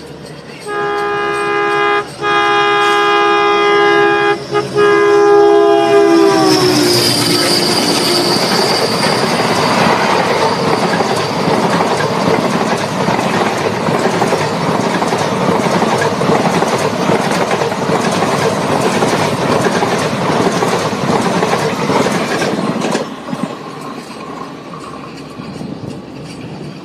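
WDM3A diesel-electric locomotive passing with its horn sounding for about six seconds, broken twice briefly, the pitch dropping as it goes by. Then the train rolls past with a loud rumble and clickety-clack of wheels over the rail joints, dropping away about four seconds before the end.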